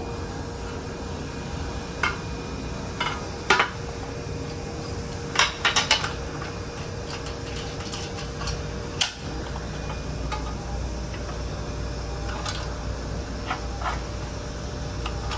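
Scattered metallic clinks and knocks as a thin metal test part and its clamp are handled and repositioned on a welding table, with a quick run of clinks about halfway in, over a steady machine hum.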